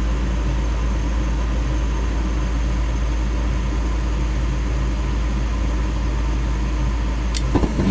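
Gas furnace's draft inducer motor running with a steady hum during the start-up sequence. A single sharp click comes near the end.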